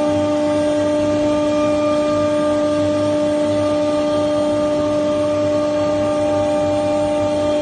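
3.2 kW spindle of a 1325 CNC router running, a steady high whine with several overtones over a noise hiss.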